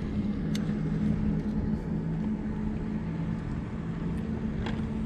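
A steady low engine hum, a motor running with two low pitches that alternate, over a constant rumble. Two faint clicks, one about half a second in and one near the end.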